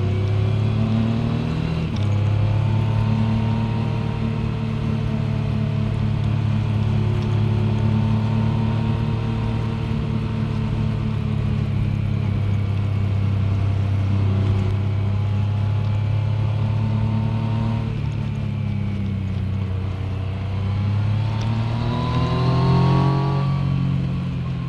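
Yamaha MT-09's inline-three engine running under way on a motorcycle ride, holding a steady note for most of the time. The note drops about three-quarters of the way through, then rises as the bike accelerates and falls away again near the end.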